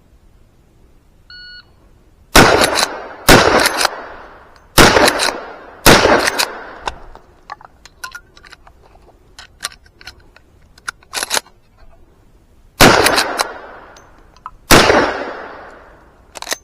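A shot timer's start beep, then four shots from a Rossi R92 lever-action rifle in .357 Magnum, fired in two pairs about a second apart. Several seconds of small clicks follow as the rifle is reloaded, then two more shots about two seconds apart, each ringing out afterwards.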